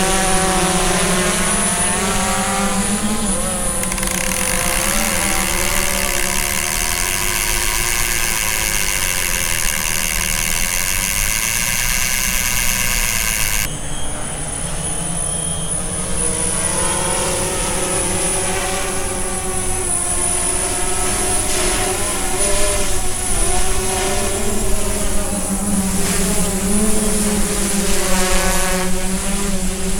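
Propellers of a large DJI S900 hexacopter drone whining while it hovers and manoeuvres, several pitches wavering up and down together. The sound changes abruptly about halfway through.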